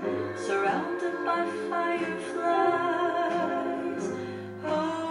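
Background music with a singing voice over sustained instrumental notes and a steady bass line.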